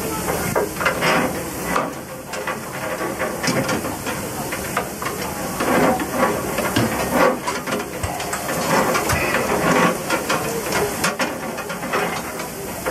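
Steady hiss of steam rising from hot ash and clinker dumped into the ash pit under a steam locomotive during fire cleaning, with irregular clatters of falling ash and clinker.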